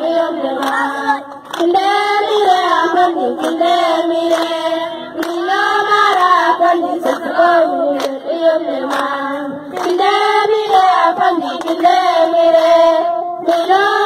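A group of girls singing together, mostly as one line, in rising and falling phrases, with sharp claps among the voices.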